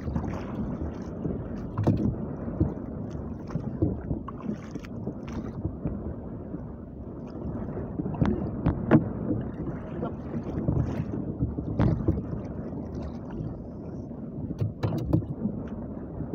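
Choppy sea water slapping and splashing against the hull of a small outrigger fishing boat, with wind on the microphone and sharp knocks now and then.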